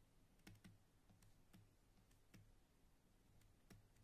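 Near silence: room tone with about a dozen faint, irregularly spaced clicks.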